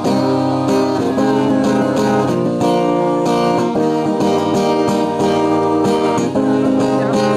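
Acoustic guitar strumming chords in a steady rhythm, playing the song's closing instrumental bars with no singing.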